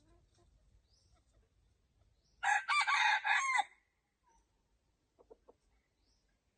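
A rooster crows once about two and a half seconds in: a harsh call lasting just over a second, falling in pitch at its end.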